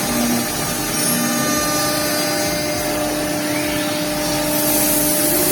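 Five-axis CNC router (SM Mastertro T3CU 28) running, its spindle whine steady over a noisy wash of cutting. Over the last couple of seconds the pitch rises and the hiss grows louder.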